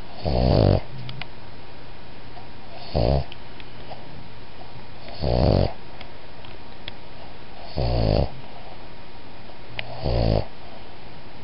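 A Boston terrier–pug cross snoring in its sleep: five short, regular whisper snores about two and a half seconds apart.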